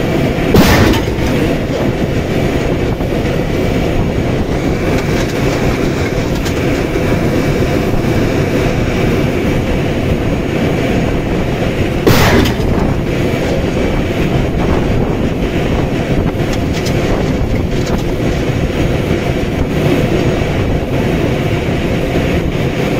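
A tank running steadily, with engine and tracks making a continuous rumble, broken by two loud bangs about a second in and about twelve seconds in. The second bang is the tank's main gun firing.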